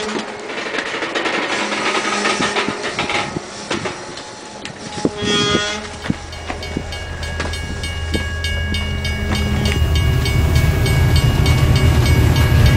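Steam-train sounds with a short whistle blast about five seconds in. In the second half there is an even, fast clicking rhythm like wheels on rail joints.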